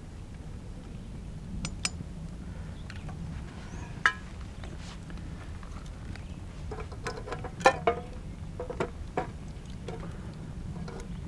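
Metal cookware clinking and knocking: a few scattered knocks, and a louder cluster about two-thirds of the way in where one clink rings briefly, over a steady low rumble.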